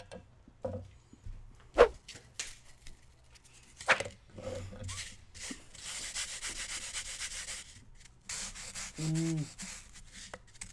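Sandpaper rubbed close to the microphone: a few handling clicks, then two stretches of quick, even scraping strokes in the second half.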